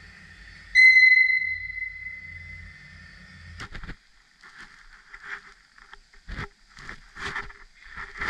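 A sudden ringing metallic strike about a second in, its tone dying away over a couple of seconds, then a few short light knocks near the end.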